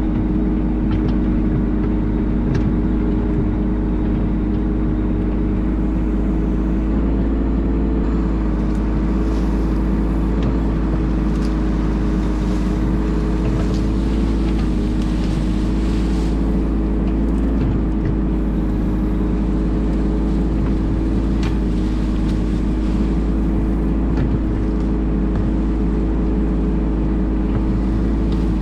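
Bobcat E10 mini excavator's diesel engine running steadily at working speed while the bucket digs into the hillside, with a few faint light clicks scattered through.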